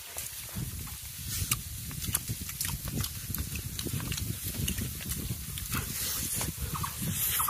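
Close-up eating sounds of people chewing handfuls of biryani, with wet smacking and scattered sharp mouth clicks.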